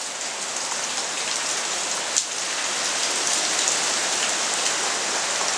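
Steady rain from a tropical storm, falling as a continuous even wash of noise.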